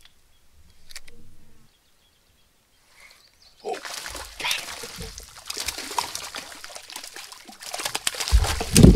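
A hooked trout thrashing and splashing at the water surface. It starts about four seconds in as the fish takes the jig and goes on as the fish is drawn in close. A loud low thud comes near the end.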